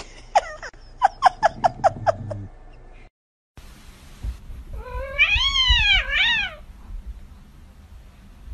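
Domestic cat meowing: a quick run of about seven short, downward-sliding meows, then after a break one long meow that rises and falls in two swells.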